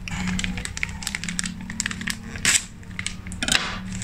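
Thin plastic snack bag crinkling and rustling in the hands in irregular bursts, loudest twice in the second half, over a low steady hum.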